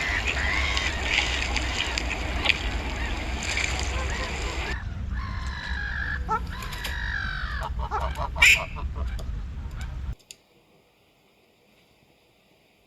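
Domestic ducks and geese calling: quacks and honks over a steady rumbling background, then after an abrupt change about five seconds in, a clearer run of honking calls with one sharp knock. The sound cuts off about ten seconds in, leaving near silence.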